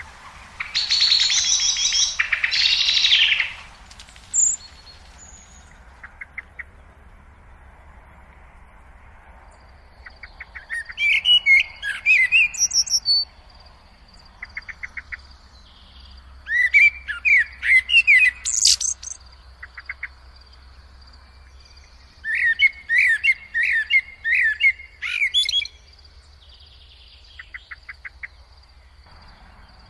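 Common blackbird singing: bouts of whistled, warbling phrases, each breaking into high squeaky twitters, a few seconds apart. A loud harsh chattering burst comes near the start, and faint rapid trills fall in the gaps.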